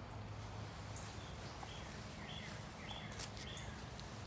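Faint bird chirps, a handful of short calls about two seconds in, over a steady low hum.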